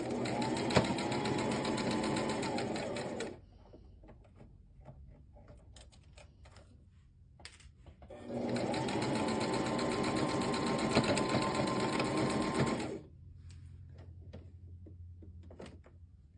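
Small Brother electric sewing machine stitching in two runs, about three seconds and then about five seconds, its motor spinning up at the start of each run. Light scattered clicks in the pause between runs.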